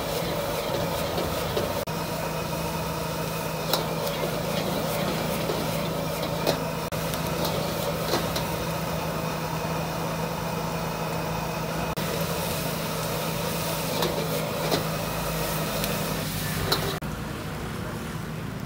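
Steady roar and hum of a high-output gas wok burner, with a few sharp clinks of a metal spatula striking the iron wok as it stir-fries. Near the end the roar eases as the flame is turned down.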